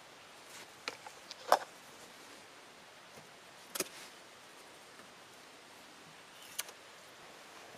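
Sparse handling sounds of lashing a wooden ladder rung with paracord: a few sharp clicks and rustles of cord and wood, the loudest about a second and a half in, with quiet between. Near the end a knife trims the cord.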